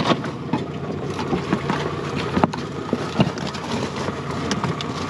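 Boat's outboard motor idling steadily, with a few sharp knocks and clicks over it, the loudest about two and a half seconds in.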